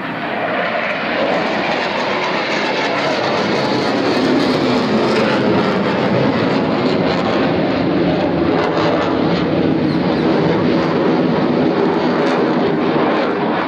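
Military aircraft engine noise from a flypast: a loud, steady rushing that builds over the first few seconds and then holds.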